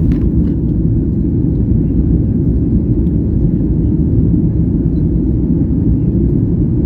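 Steady low rumble of a Boeing 737 Max 8's CFM LEAP-1B engines and airflow, heard from inside the rear cabin during the climb after takeoff.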